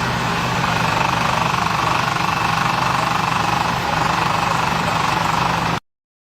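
A heavy machine running loudly and steadily with a fast rattling beat, cutting off abruptly near the end.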